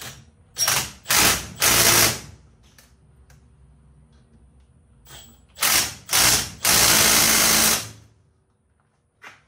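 Red cordless power driver run in short bursts as it drives a fastener into a yellow tool block: three quick runs early on, then after a pause three more, the last held for about a second.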